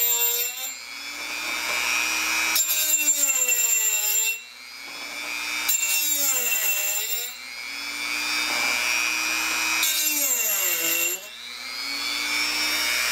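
Dremel rotary tool with a grinding stone sharpening the teeth of a steel hole saw: about four grinding passes, each a harsh grinding noise during which the motor's whine sags in pitch under load, then winds back up as the stone comes off the tooth.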